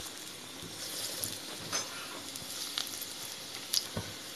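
Moong dal batter dumplings deep-frying in hot oil: a steady high sizzle with scattered pops and crackles as more batter is dropped into the oil.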